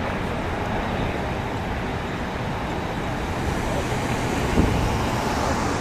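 Steady low rumble of a Boeing 777-200ER's jet engines as the airliner rolls out after touchdown, with a brief wind buffet on the microphone about four and a half seconds in.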